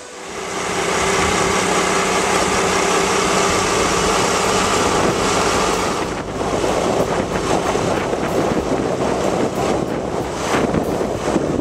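Motorcycle riding along a road: a low engine hum under a heavy rush of wind on the microphone, starting about half a second in. About halfway through the wind noise turns rougher and more uneven.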